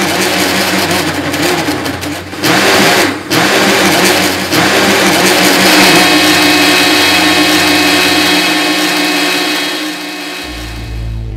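Power saw running loudly with a harsh, hissing whine, its motor pitch wavering as it is loaded; it eases off near the end.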